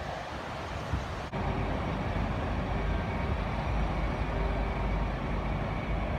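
Wind buffeting the phone's microphone outdoors, an irregular low rumble over a steady background hiss. It gets louder after an abrupt cut about a second in.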